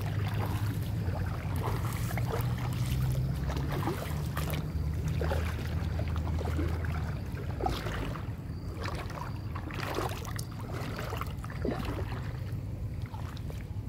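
Water splashing and swishing as a person wades through shallow floodwater and pushes through bankside weeds, in irregular splashes over a low steady rumble.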